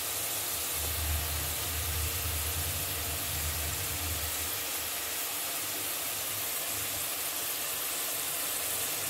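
Peeled field beans (mochai) deep-frying in hot oil in a wok: a steady sizzling hiss. The froth has nearly died down, a sign the beans are almost done.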